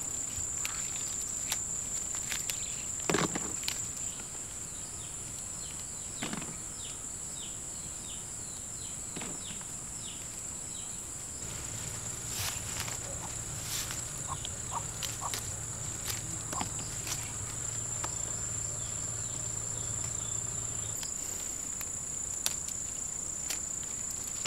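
A steady, high-pitched insect chorus drones throughout. Over it come scattered soft snaps and leaf rustles as green chili peppers are picked from the plants by hand. A low hum joins for several seconds in the middle.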